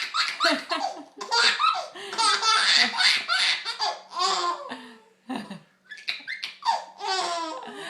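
A baby laughing loudly at a sneeze, in fits of short, rapid belly laughs. The laughter breaks off briefly about five seconds in, then starts again.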